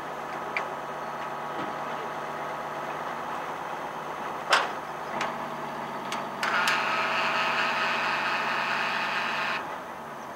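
Mobile crane's engine running steadily as it hoists a Titan II missile airframe from the silo. There is a sharp knock about four and a half seconds in. The engine then runs louder, with more whine in it, for about three seconds before dropping back near the end.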